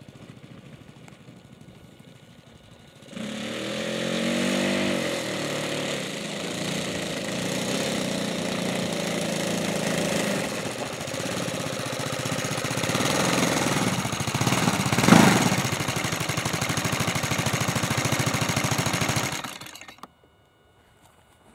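Roto 35 FS four-stroke petrol engine in a radio-controlled model plane, faint at first, then running loudly as the plane taxis close, its note rising and falling about four seconds in and surging briefly about fifteen seconds in. The engine is shut off about twenty seconds in, and the running stops abruptly.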